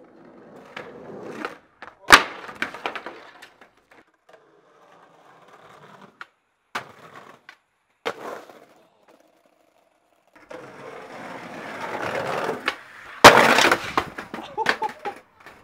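Skateboard wheels rolling on rough pavement and the board knocking and slapping through a few separate tries. About thirteen seconds in, a longer roll builds up and ends in a loud crash as the skater bails onto brick paving, followed by a clatter.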